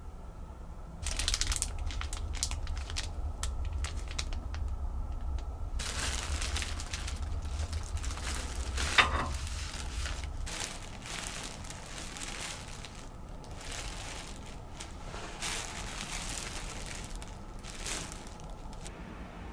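Clear plastic wrapping crinkling and crackling in irregular bursts as packaged folded clothing is handled, with one sharper crackle about nine seconds in. A low hum sits underneath for the first half.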